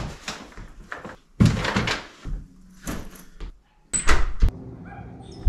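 A series of knocks, thuds and rustling, like gear being handled, with the sharpest knocks about four seconds in.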